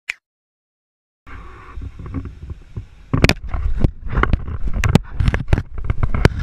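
A brief click, about a second of silence, then a crocodilian's jaws working on a small action camera: irregular hard knocks and clicks of teeth against the camera body over a rumbling, sloshing handling noise.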